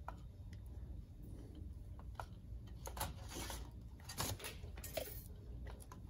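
Small plastic clicks and rustling of wires as crimped terminals are pushed into a Weather Pack connector housing, with a few sharp clicks, the loudest about four seconds in.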